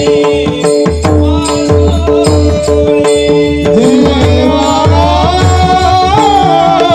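Devotional kirtan music: a harmonium holds a steady chord while a hand drum beats a regular rhythm. A male voice sings a gliding melody from about four seconds in.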